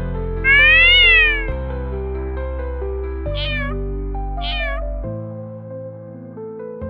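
A cat meows three times over soft background music: first one long, loud meow that rises and falls, then two shorter meows about a second apart.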